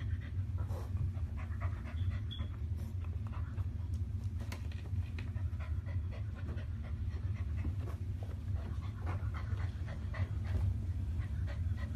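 Chow Chow puppy panting as it climbs carpeted stairs, with many small, irregular scuffs and clicks over a steady low hum.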